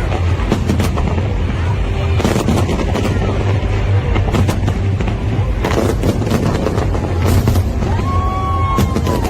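Fireworks exploding: a quick, irregular string of bangs over a continuous deep rumble, with a falling whistle-like tone about eight seconds in.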